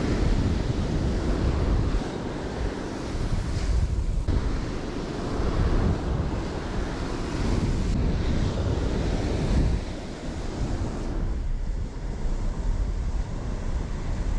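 Ocean surf breaking and washing up the beach, with wind buffeting the microphone; the rush rises and falls in loudness.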